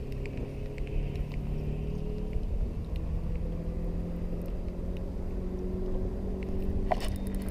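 A motor running steadily, its hum slowly rising in pitch, over a low rumble.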